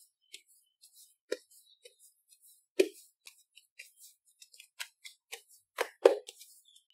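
Hands patting and stretching soft pizza dough over a floured silicone mat: irregular soft pats and slaps, the loudest about three seconds in and a close pair near the end.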